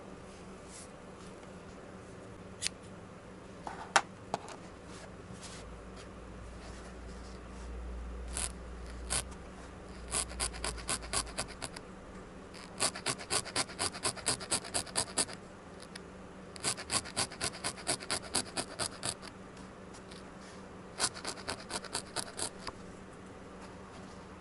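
Barbed felting needle stabbing wool into a foam felting pad: quick runs of sharp crunchy pokes, about five a second, broken by short pauses, with a few single pokes before the first run.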